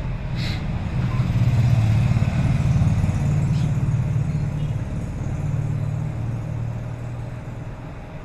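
Low engine rumble that swells over the first two seconds and then slowly fades.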